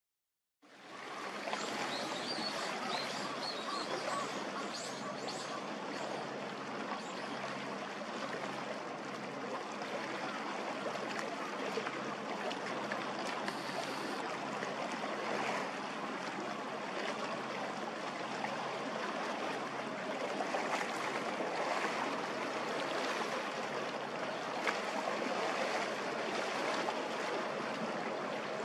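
Steady rushing of harbour water at the shore, fading in just after the start and holding even throughout.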